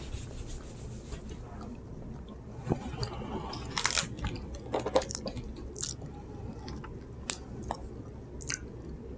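People chewing and crunching bites of panela, a hard block of unrefined cane sugar, with irregular sharp crunches.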